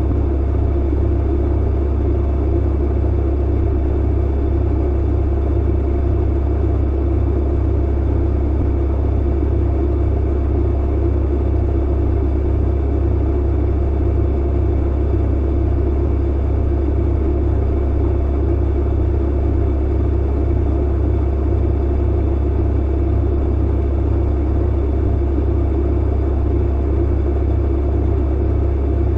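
Clothes dryer running steadily: a constant low hum and rumble of the motor and tumbling drum, with faint steady tones above it.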